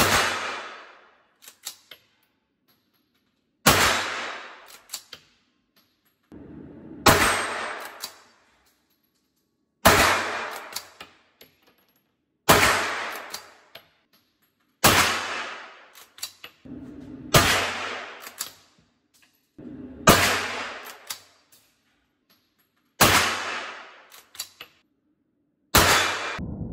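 T2 9mm straight-pull rifle fired ten times at a steady pace, about one shot every two and a half to three seconds, each shot echoing in the indoor range. Between shots, the straight-pull bolt clicks as it is worked by hand to chamber the next round.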